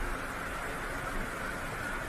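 Waterfall: a steady, unbroken rush of falling water with a low rumble underneath.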